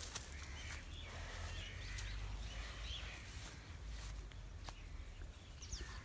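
Outdoor farmyard background: a low rumble of wind on the microphone, scattered clicks and knocks, and faint bird chirps.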